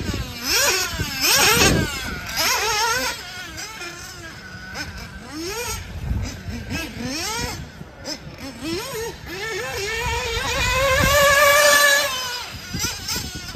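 Radio-controlled off-road racing cars running on a dirt track. Their motors whine in pitch sweeps that rise and fall with the throttle. About ten seconds in, one car comes close and its whine swells louder and steadier, then drops away.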